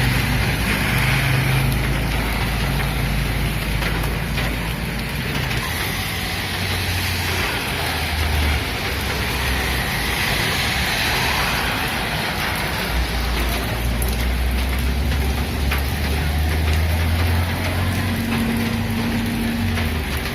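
Steady rain and wind noise with a low rumble underneath that comes and goes.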